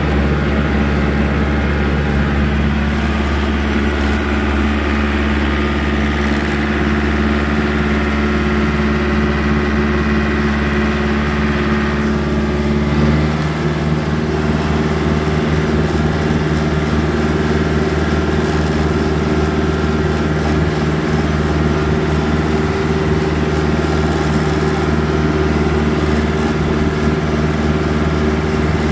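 Compact tractor engine running at a steady speed while the tractor drives along, heard from the driver's seat; the engine note shifts abruptly to a different pitch about 13 seconds in.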